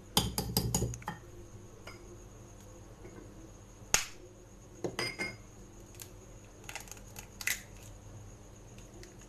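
Light knocks and clinks of a mixing bowl and kitchen utensils being handled: a quick cluster of taps in the first second, then single sharp clicks about four, five and seven and a half seconds in.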